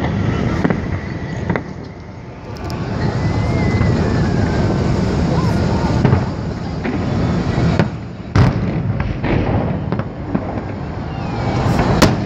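Festive fireworks salute going off: a string of sharp bangs at uneven intervals, the loudest about eight and twelve seconds in, over a steady low rumble.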